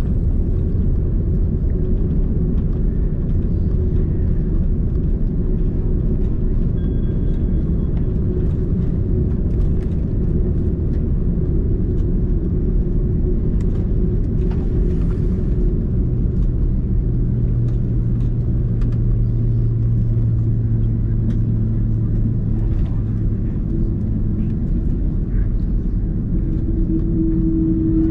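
Inside the cabin of an Airbus A330-203 slowing after landing: a steady low rumble from the GE CF6-80E1A3 engines and the wheels rolling on the runway. A low hum joins about halfway through and fades again a few seconds later.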